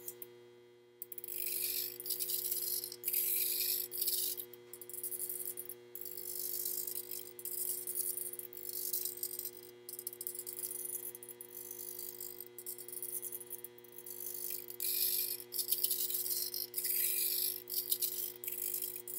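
Irregular bursts of rattling and whirring from a hand-held quadcopter and its servo-driven camera gimbal as the frame is tilted about and the servos correct. A steady electrical hum runs underneath.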